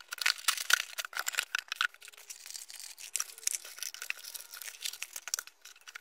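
Cardboard toy box being opened and unpacked by hand: a busy run of rustles, scrapes and light knocks from the cardboard and its packaging, easing off a little after about two seconds.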